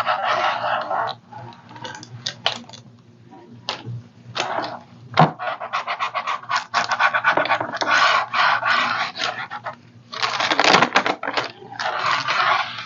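Scratchy rubbing strokes over the surface of a tray as a decoupage napkin is smoothed down from the middle outward, coming in several spells of a second or more with short pauses between.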